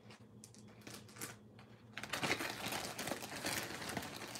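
A clear plastic zip-top bag crinkling as it is handled and pulled open. Faint rustles at first, then steady crinkling from about two seconds in.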